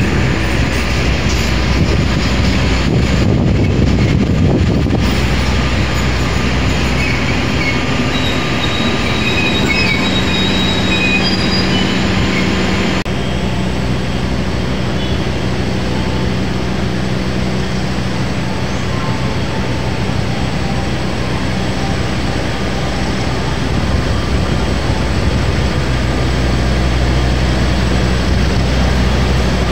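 KA Sawunggalih passenger train rolling slowly past along the platform: a steady rumble of coach wheels on the rails with a constant low hum from the train. The sound changes abruptly about halfway through.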